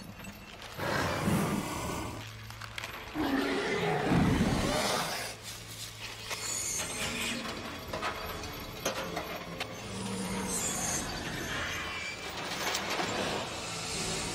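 Film sound effects: the Alien queen shrieks in two loud swells in the first five seconds. Then comes a steady low mechanical hum with clanking and ratcheting from the chains and machinery holding her.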